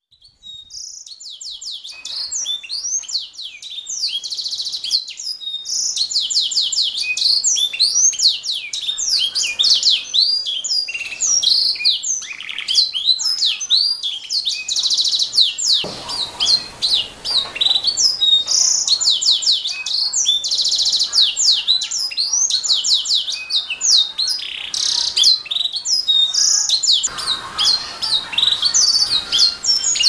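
Canary singing a long, continuous song of rapid trills and quick repeated chirps, starting about half a second in after a brief silence.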